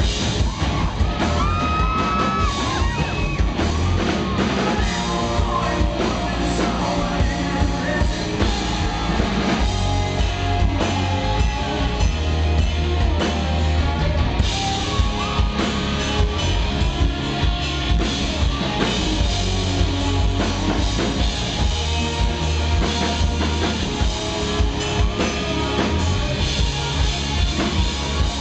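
Live rock band playing a song, with drums and guitar under a male lead singer's vocals.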